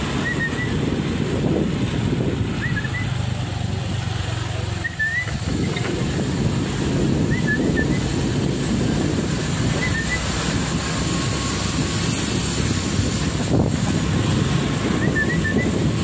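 Motorcycle engine running under a steady rumble of wind and road noise while riding. A small bird chirps briefly every couple of seconds.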